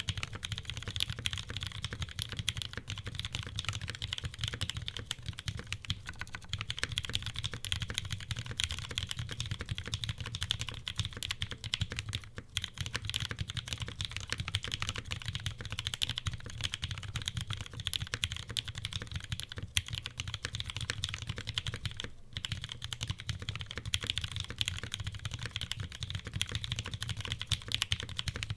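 Continuous typing on a custom mechanical keyboard, a zekk.works Jennie with an o-ring gasket mount and polycarbonate plate, fitted with lubed and filmed retooled Cherry MX Brown tactile switches and GMK keycaps. The keystrokes come in a dense, steady stream, broken by two short pauses about 12 and 22 seconds in.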